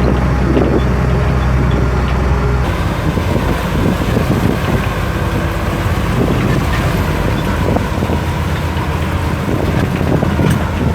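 Tractor engine running steadily, with wind buffeting the microphone; the low engine hum drops abruptly a little under three seconds in.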